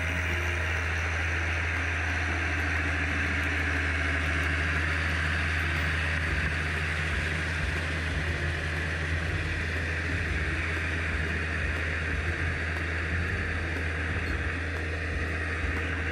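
Tracked tractor's engine running steadily as it works a flooded rice paddy: a constant low drone.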